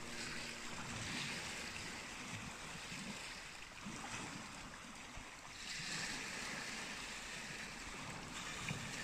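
Waves washing on a pebble beach: a steady hiss that swells louder about six seconds in, then eases near the end.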